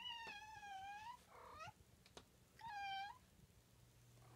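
Domestic tabby cat whining with three meows: a long wavering one, a short one right after, and another about two and a half seconds in.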